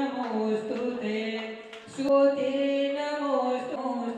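Slow devotional chant sung by a single voice, sustaining long, steady notes, with a brief break about two seconds in.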